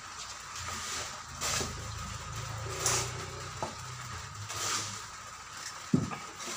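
Knife work on a raw suckling pig on a cutting board: three short scraping swishes, then a sharp knock near the end, over a steady low hum.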